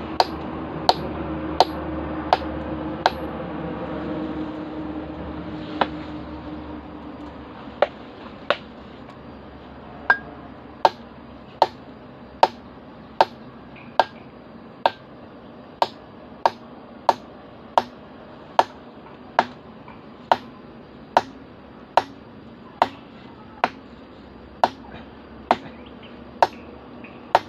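Sharp, regular strikes of a metal chisel on rock, about one a second with a short pause a few seconds in, chipping open a rock crevice to reach a wild bees' nest. A low hum fades out over the first several seconds.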